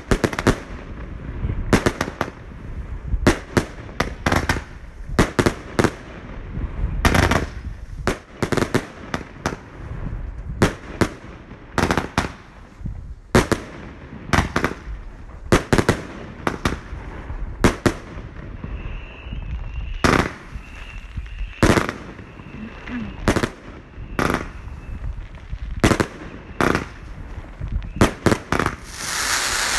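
Consumer firework battery (cake), 'Bulldozer' by China Red, firing shot after shot: sharp bangs of launches and aerial bursts at irregular intervals, several a second at times. Near the end it turns to a dense crackle.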